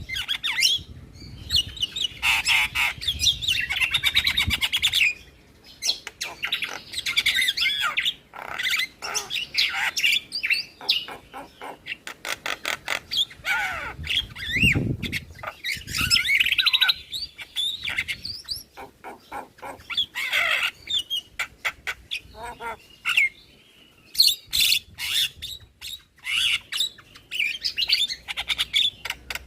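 Javan mynas calling: harsh chatter, squawks and whistled notes, broken by fast clicking rattles and short pauses.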